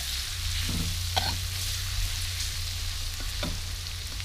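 Chopped garlic sizzling in hot oil in a steel wok, stirred with a metal spatula that scrapes against the pan a few times.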